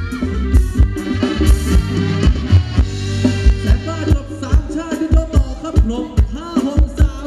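Live Thai band playing ramwong dance music loud, with a steady drum beat and bass, and a voice singing over it in the second half.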